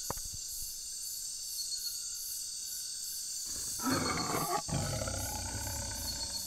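Tiger roaring, starting about three and a half seconds in after a steady high hiss, in two long rough pulses with a brief break between them.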